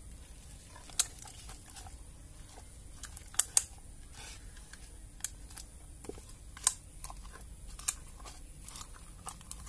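A stick stirring and pulling tacky bird lime made from rubber latex in a small container, with sticky tearing sounds and irregular sharp clicks, about seven of them.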